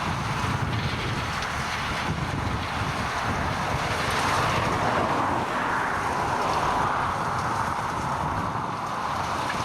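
Tractor and field machinery working with a steady engine and machine noise that swells slightly about halfway through. Wind buffets the microphone.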